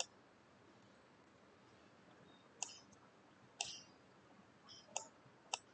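Faint computer mouse clicks, about six at uneven intervals, some heard as quick press-and-release pairs.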